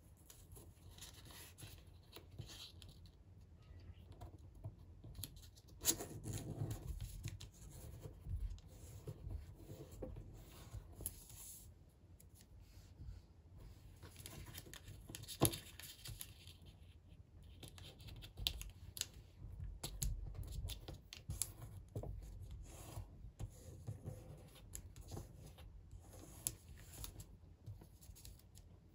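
A sheet of origami paper being folded by hand: rustling and sliding as it is turned and creased, with a few sharp clicks, the loudest about halfway through.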